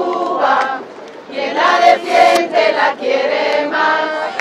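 A crowd of voices singing together in unison, in phrases with short breaks between them.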